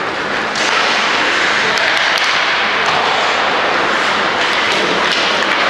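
Ice-rink crowd noise: spectators shouting and cheering in a steady loud din that swells about half a second in, with a few sharp clicks over it.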